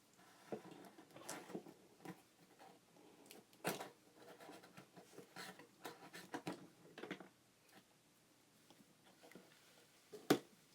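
Faint handling sounds from a homemade cardboard vending machine being pushed and worked: scattered small clicks, taps and rustles, with a sharper click about three and a half seconds in and another near the end.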